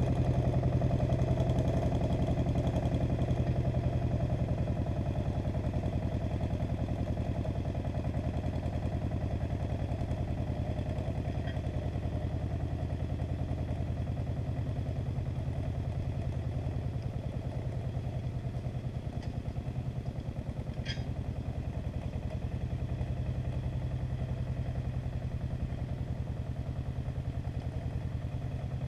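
An Agria 8900 articulated tractor's Lombardini diesel engine runs steadily under load while pulling a disc harrow, and grows gradually fainter as it moves away. A brief high tick sounds twice, the clearer one about two-thirds of the way through.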